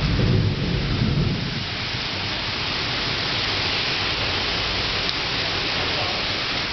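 Heavy rain pouring down steadily, with a low rumble of thunder that dies away in the first second or two.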